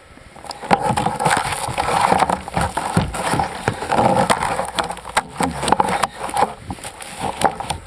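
Handling noise close to the microphone: an irregular run of clicks and knocks with rustling of a padded jacket and gloves as a kayak paddle is handled over the kayak's deck. It starts about half a second in and stops just before the end.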